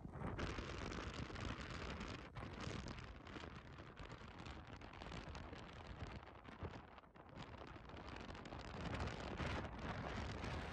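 Wind buffeting the microphone in uneven gusts: a low rumble under a rushing hiss that comes up strongly about half a second in.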